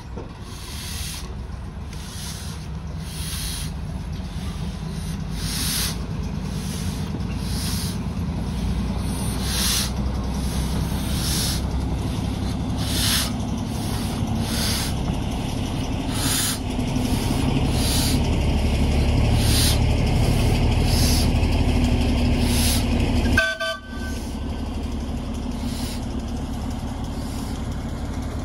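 0-6-4T Torch Lake steam locomotive working under steam: sharp exhaust chuffs about once a second over a low rumble that grows louder, with a sudden brief drop in the sound a little past three-quarters of the way through.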